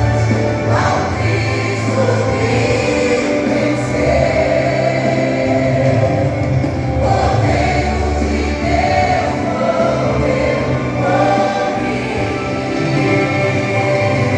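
A worship vocal group singing a slow gospel hymn in Portuguese over instrumental accompaniment with sustained bass notes.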